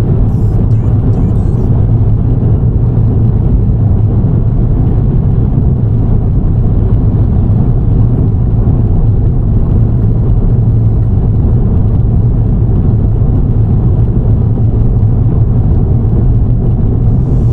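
Subaru WRX cruising, heard from inside the cabin: a steady low drone of engine and road noise.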